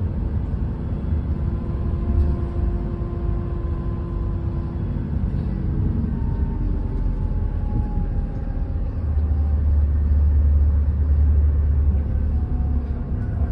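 Community bus driving, heard from inside the cabin: a steady low engine and road rumble with faint whining tones, growing louder for a few seconds in the second half.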